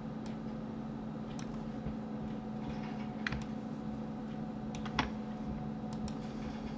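A handful of scattered, irregular clicks from computer keys and mouse buttons over a steady low hum. The loudest click comes about five seconds in.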